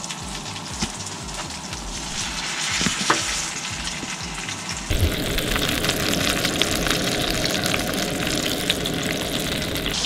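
Venison shanks searing in hot butter and olive oil in a pan, sizzling steadily; the sizzle gets louder about halfway through.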